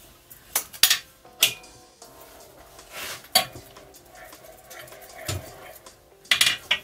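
Metal clinks and knocks from a steel engine stand and engine parts being handled: about half a dozen sharp strikes at irregular spacing.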